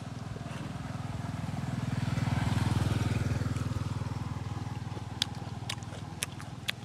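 A motorcycle passing on the road, its engine drone growing louder to a peak about halfway through and then fading away. A few sharp clicks near the end.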